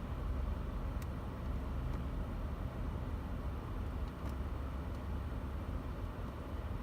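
Nissan Altima idling, a steady low rumble heard inside the cabin, with a couple of faint clicks.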